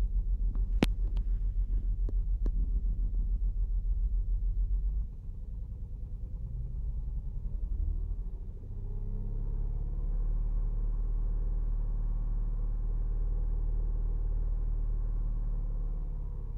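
2008 Saturn Outlook's 3.6-litre V6 idling with a cylinder 1 misfire (code P0301), a low, uneven pulsing run. About five seconds in the level drops, and from about eight seconds it settles into a steadier run. A few sharp clicks come near the start.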